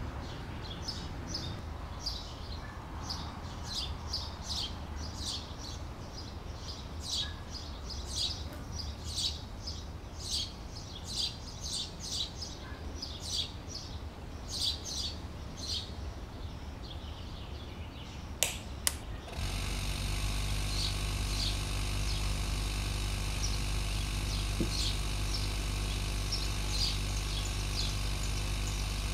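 Birds chirp in short, high calls repeating irregularly. About eighteen seconds in there are two sharp clicks, and then a steady mechanical hum starts and keeps going: the air pump feeding the soda-bottle pressure rig, running to pump the bottle up. Faint chirps continue over the hum.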